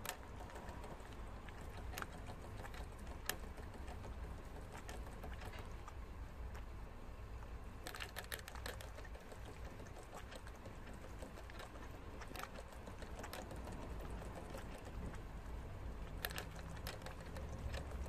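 Prairie dog drinking from a cage water bottle's metal sipper spout: irregular small clicks and ticks as its tongue works the spout, a few sharper ones among them, over a low steady hum.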